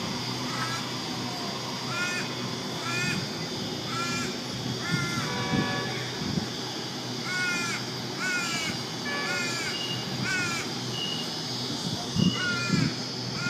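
A bird calling over and over in short, clear rising-and-falling notes, often in pairs, over a steady low hum.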